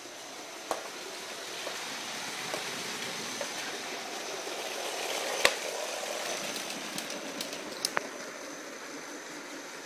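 Lego 10219 Maersk train running along plastic track, its Power Functions train motor and wheels making a steady whir that swells towards the middle and eases off again. A few sharp clicks come through, the loudest about halfway.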